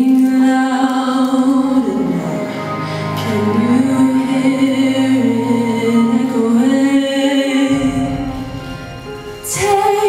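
A woman singing a slow song solo into a microphone over musical accompaniment, holding long notes.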